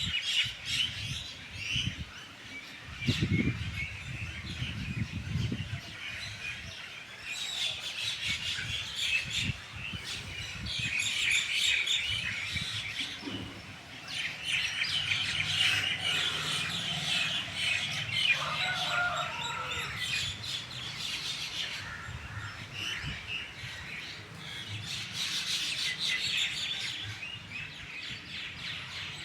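Morning chorus of many small birds chirping and calling over one another, in dense overlapping bursts. A low rumble runs under the chorus a few seconds in.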